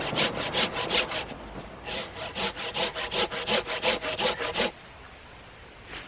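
Hand saw cutting through a small log of wood in quick back-and-forth strokes, with a short pause about a second in; the sawing stops after about five seconds.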